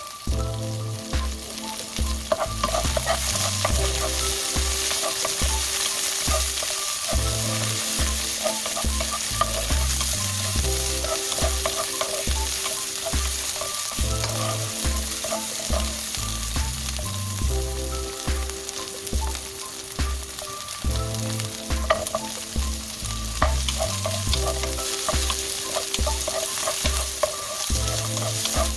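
Scallions and sliced onion sizzling as they are stir-fried in a nonstick wok, with a wooden spatula scraping and tapping the pan. Background music with a repeating bass line plays underneath.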